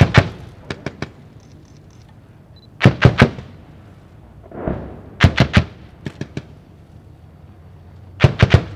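Automatic weapons firing in short bursts of two or three shots, four loud bursts spaced a few seconds apart with fainter bursts answering after some of them. A duller, deeper boom comes about halfway through.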